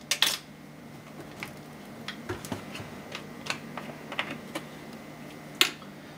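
Light clicks and clatter of plastic measuring spoons and a plastic oil bottle being handled and uncapped on a kitchen counter, with one sharper click about five and a half seconds in.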